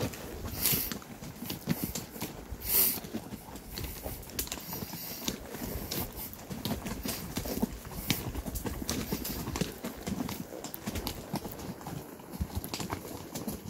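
Horse's hooves clopping at a walk on a rocky trail: a string of uneven hoof strikes, with two louder rushing bursts about one and three seconds in.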